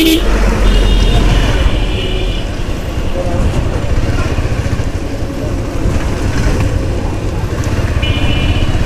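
Road and wind noise from riding a motorcycle in traffic, with a steady low rumble. A vehicle horn sounds about a second in and again near the end.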